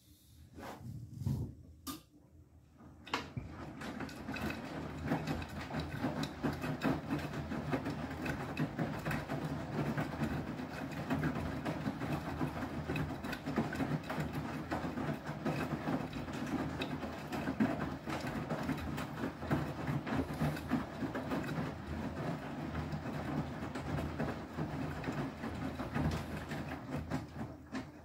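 Beko WTK104121W washing machine's drum tumbling the load in the main wash, motor running and wet laundry and water sloshing. After a few light clicks and a thump, the drum starts turning about three seconds in and stops just before the end.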